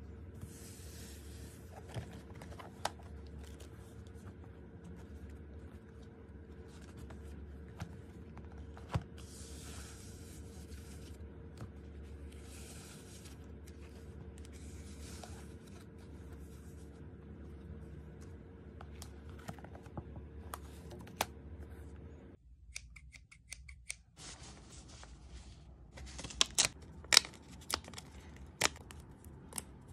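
Close-up paper handling: journal pages turning and sliding with short rustles and scattered taps over a steady low hum. About 22 seconds in the hum stops, a quick run of small ticks follows, and then a die-cut paper sticker is worked off its backing with sharp crinkles and snaps.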